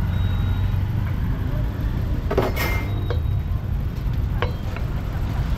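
Steady low rumble of street traffic, with a short metallic scrape and clink about halfway through as a roast duck is slid off its metal rotisserie spit. Two light knocks follow near the end.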